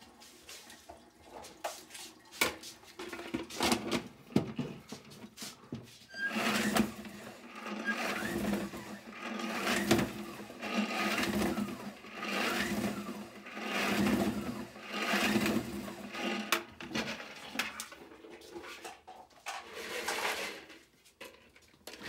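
Plastic salad spinner being spun to throw rinse water off a basket of keyboard switch housings: a few clicks and knocks as the lid goes on, then, about six seconds in, a whirring that surges with each stroke, a little more than once a second, until it stops near the end.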